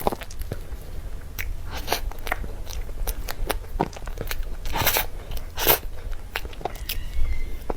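Close-miked eating sounds of cream cake: soft bites and wet chewing with many small sticky mouth clicks and smacks, the loudest a pair about five seconds in.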